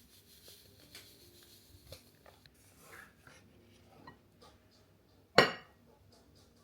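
Light clicks and knocks of dishes and utensils being handled, with one sharp, much louder clink or clatter about five seconds in.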